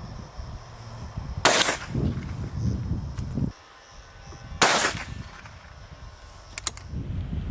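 Two shots from a 12-bore side-by-side shotgun, about three seconds apart, each with a short echo. Wind rumbles on the microphone between them, and a few quick light clicks come near the end.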